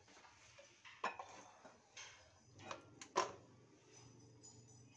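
A serving spoon scraping and knocking lightly in a nonstick wok as thick curry is scooped out into a plate, with a few short clicks spread over the first three seconds.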